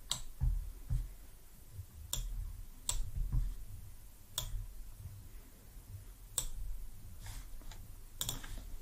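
Scattered, irregular clicks of a computer mouse, about half a dozen, over a faint low rumble of room and microphone noise.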